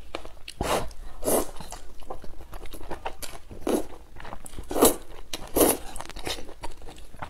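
Close-miked eating of thick Xinjiang fried rice noodles in spicy sauce: several short wet slurps as the noodles are sucked in, a second or so apart, with chewing between.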